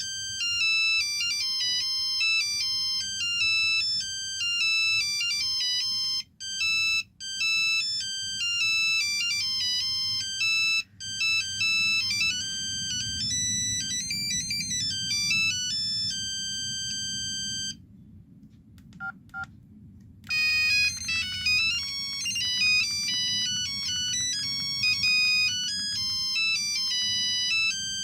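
Ringtone melodies from an LG V111 phone's speaker: synthesized tunes play one after another with brief breaks between them. About two-thirds of the way through, a held tone gives way to a short pause with a few quick beeps before the next tune starts.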